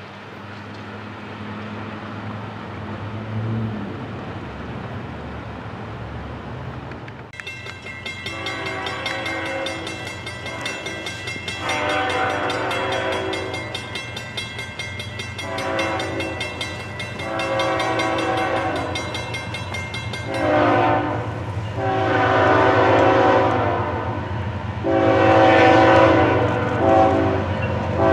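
A freight train's cars rumbling low as it moves away, then a diesel locomotive's multi-chime air horn sounding a series of long blasts with a few short ones, growing louder as the locomotive approaches.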